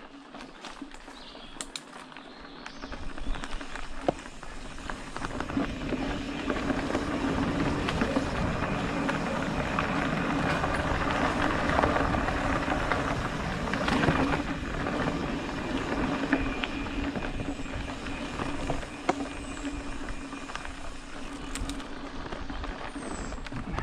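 Mountain bike riding along a leaf-covered dirt singletrack: steady tyre and trail noise with small knocks and rattles from the bike, growing louder about five seconds in.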